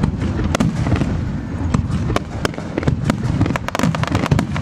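Aerial firework shells bursting in quick, irregular succession: sharp bangs over a continuous low rumble of booms, with a rapid run of cracks about three and a half seconds in.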